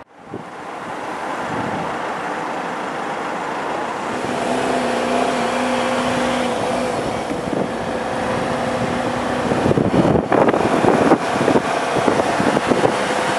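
Steady road and wind noise from a moving vehicle, with a low hum holding one pitch for a few seconds in the middle. In the last few seconds, wind buffets the microphone in irregular gusts.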